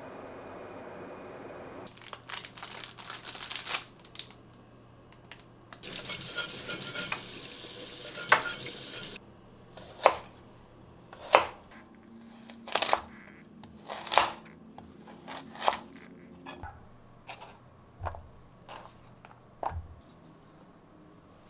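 Kitchen prep sounds: dishes and utensils clinking and knocking, a series of sharp taps roughly a second apart, with a few seconds of denser rustling noise partway through.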